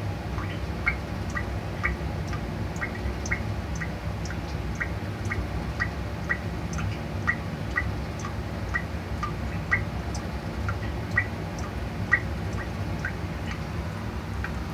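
Water drops falling onto a bathroom floor, each a short, pitched plink, landing irregularly about twice a second over a steady low background hum.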